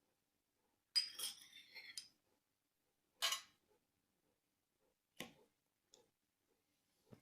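A few separate clinks and knocks of a utensil against a dish while a salad is put together. The first clink, about a second in, rings on for about a second; a sharper one comes a little after three seconds, a click about five seconds in, and a soft low knock near the end.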